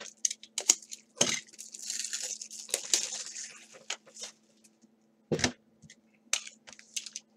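Tabletop handling noise: clicks and knocks with two firmer thuds, about a second in and near five and a half seconds, and a stretch of crinkling plastic wrap from about two to three and a half seconds in. A faint steady hum runs underneath.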